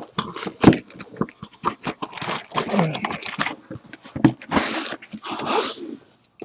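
Clear plastic bag crinkling around a bagged jersey, then a cardboard box lid being closed and the box slid across a table mat: a run of irregular crackles, rustles and scuffs.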